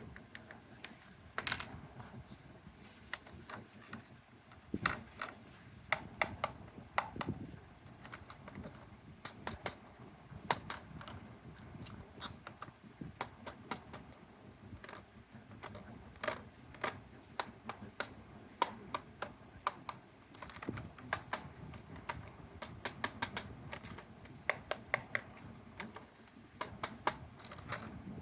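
Toy cars and their packaging being handled: a long, irregular run of light clicks and taps, several a second with short pauses.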